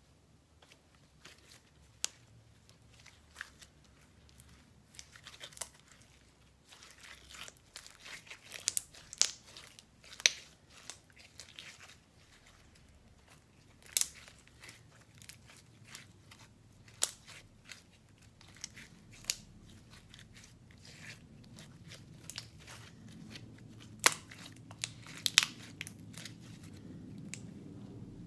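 Clear slime being handled, stretched and pressed by hand, giving irregular sticky clicks and crackles, with a few louder pops.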